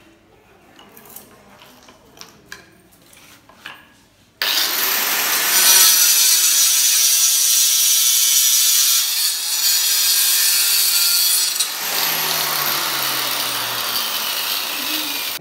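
Handheld angle grinder cutting through a marble inlay border strip, a loud grinding whine that starts abruptly about four seconds in, after a few faint handling clicks. Near the end the pitch drops and the sound grows a little quieter.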